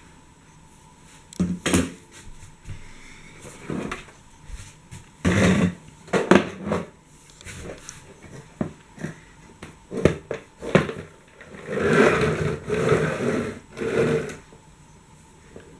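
Irregular knocks and clattering, with a longer rattling stretch about twelve seconds in.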